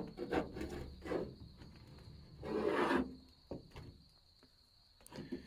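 Rubbing and scraping from handling old, corroded brake lines, with a longer rasp about two and a half seconds in and a single click after it.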